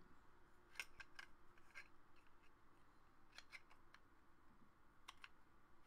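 Faint, scattered metallic clicks and scrapes of a Super Takumar 300mm f/4 lens's focus barrel being fitted over its bracket and turned by hand, about seven small ticks in all.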